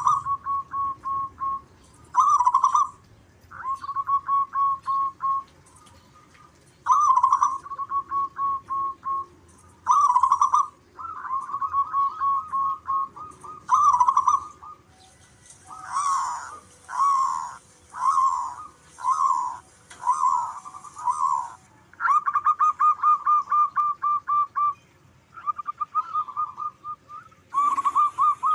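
Zebra dove (perkutut) cooing: phrases every two to three seconds, each a loud opening note followed by a rapid trill of short coos. In the middle the trill gives way to a slower run of separate coo notes.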